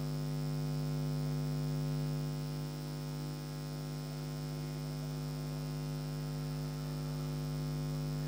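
Steady electrical mains hum, a stack of even tones that does not change.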